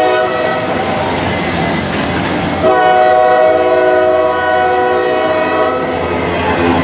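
Diesel freight locomotive's air horn sounding two long blasts back to back, the second louder, over the steady noise of the passing train.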